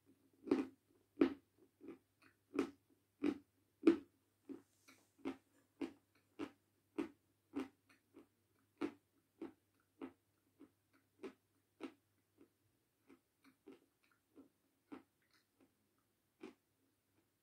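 Dry, dusty lump of 'Jasmin' edible chalk being bitten and chewed: crisp crunches about one and a half a second, loudest in the first few seconds and growing fainter as the chalk is ground down.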